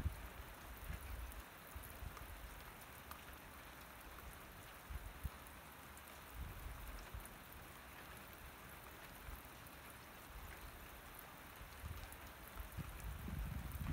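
Steady, faint rain falling, with scattered small drop ticks, and a few brief low rumbles now and then.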